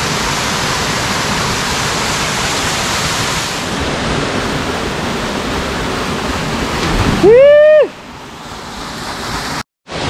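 Steady rush of the Blue Basin waterfall's falling water. About seven seconds in, a short, very loud rising cry with a clear pitch cuts across it.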